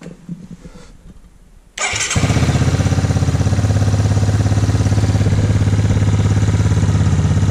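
Yamaha Tri-Moto 225's single-cylinder four-stroke engine catches almost at once about two seconds in, then runs at a steady, slightly high idle on its freshly rebuilt Mikuni VM22 carburetor.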